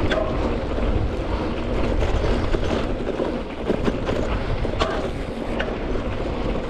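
Yeti Arc hardtail mountain bike being ridden over a dry, rough dirt singletrack: a steady rolling noise with a heavy low rumble from the tyres on the dirt, and scattered clicks and rattles from the bike.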